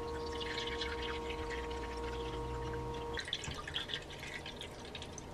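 Diesel fuel poured from a plastic bottle into an open Racor 500-series fuel filter housing, a light stream with dripping as it fills. A steady hum runs under it and stops about three seconds in.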